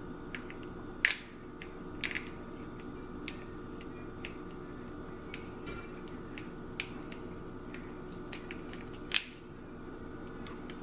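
Kitchen scissors snipping into a hard raw lobster tail shell: a few sharp crunching snips, the loudest about a second in and near the end, over a steady low hum.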